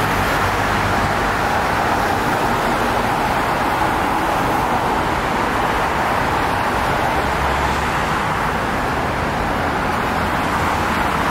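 Steady vehicle noise: an even, unbroken rush with no speech, starting and stopping abruptly.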